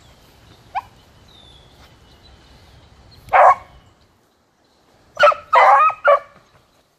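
Beagle baying while trailing a scent line, nose to the ground. One loud bark comes about three seconds in, then a quick run of three or four barks near the end.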